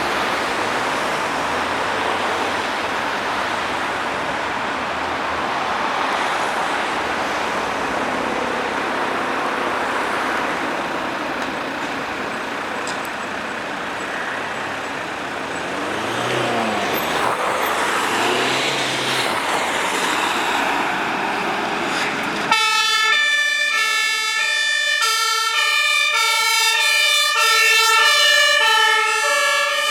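Road traffic noise with a vehicle passing. About 22 seconds in, a sudden cut to a German two-tone emergency siren (Martinshorn) alternating between its two pitches, loud and close.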